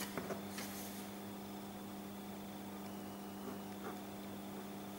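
Faint scratching of a ballpoint pen drawing lines along a ruler on paper, a couple of short strokes near the start, over a steady low electrical hum.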